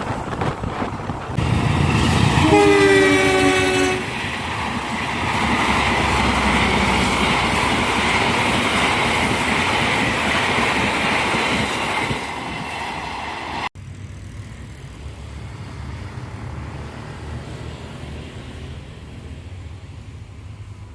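A bus's Basuri telolet horn sounds once for about a second and a half, a couple of seconds in: several notes blown together as a chord. A loud, steady rush of passing-vehicle noise follows, then the sound cuts off abruptly past the middle to quieter, steady traffic noise.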